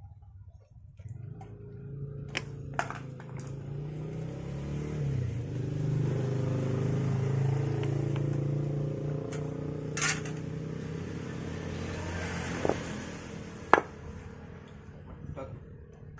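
A motor hums steadily for most of the stretch, growing louder and then fading, with a few sharp clicks and knocks of metal over it.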